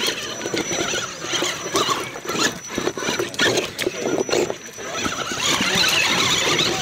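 1/10-scale electric RC rock crawler climbing over rocks, its motor and gear drivetrain whining under load, with a thin steady high whine and short clicks and clatter of the tyres and chassis on rock.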